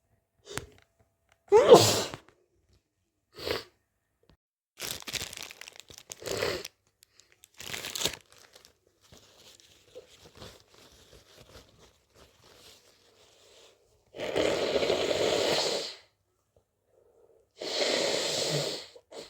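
A person with a stuffy, congested cold sneezing and sniffling. The loudest sneeze comes about two seconds in, followed by several shorter sneezes and sniffs, then two longer rushes of breath through the nose near the end.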